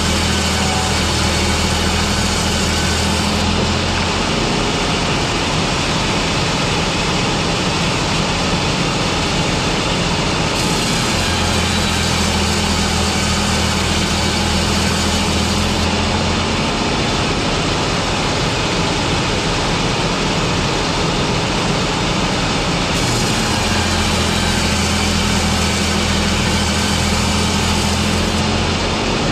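Loud, steady industrial machinery noise from a board-production line, with a low hum that switches on for about five seconds and drops out for about seven, repeating about every twelve seconds as the machine cycles.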